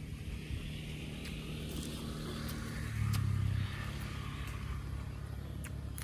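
A motor engine running with a steady low hum, which swells louder for about half a second around three seconds in. A few faint clicks sit over it.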